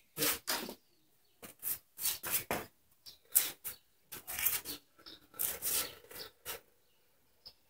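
Rubber-palmed work gloves being handled and pulled onto the hands: a quick, irregular run of short rubbing and scraping noises.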